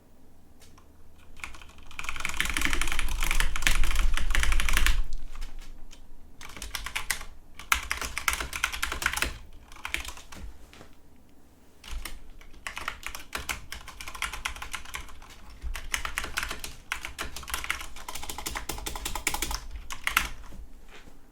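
Corsair K95 RGB Platinum XT mechanical keyboard with Cherry MX Speed switches being typed on rapidly. The typing comes in bursts: a fast, loud run of about three seconds starting about two seconds in, then several shorter runs separated by brief pauses.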